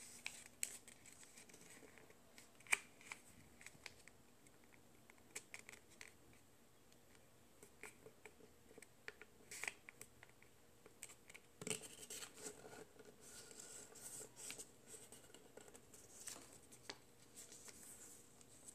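Faint rustling and crisp ticks of a square of origami paper being folded and creased by hand against a wooden tabletop, with one sharper tick about three seconds in.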